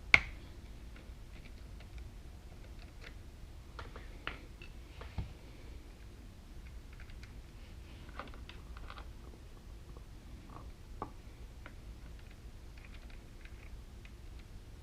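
Light, scattered clicks and taps of hand tools and metal terminal hardware at a motorcycle battery's negative terminal as the terminal is undone to fit a quick-disconnect ring terminal, with one sharper click right at the start.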